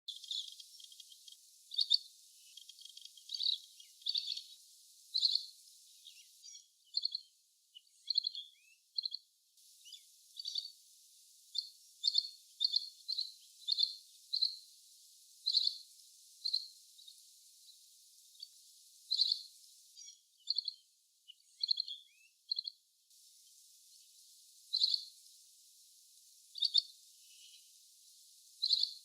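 Asian green bee-eater (little green bee-eater) calling: short, high, thin call notes repeated irregularly, about one or two a second, with a few fainter calls between them.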